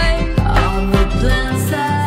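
Background music with a steady beat and sung melody.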